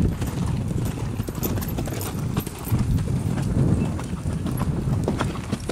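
Hoofbeats of several horses moving over the sand footing of an arena: an irregular run of dull thuds.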